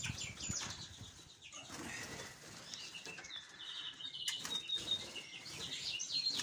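Small finches in an aviary flight fluttering their wings, with rapid high-pitched chirping. The chirps thin out in the middle, where one held whistled note sounds, and pick up again near the end.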